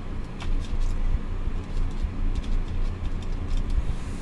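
Steady low background rumble, with a few faint light ticks scattered through it.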